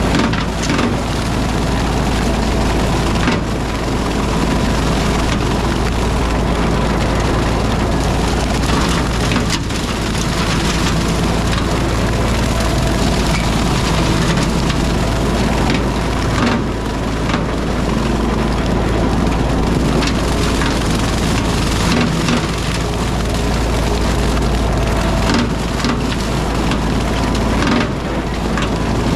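Tractor engine running steadily under load while a rotary brush cutter shreds brush, with frequent cracking and snapping of woody stems.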